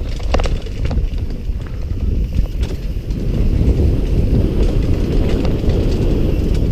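Raw helmet-camera audio of a mountain bike descending a rough dirt trail: wind buffeting the microphone in a heavy rumble, with the tyres and bike clattering and knocking over rocks and bumps.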